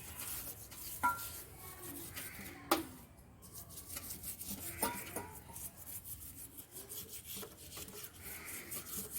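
A stiff brush scrubbing a kerosene-wet Bajaj CT100 motorcycle engine casing to strip grease and dirt, in a run of short rasping strokes, with a few sharp knocks about 1, 3 and 5 seconds in.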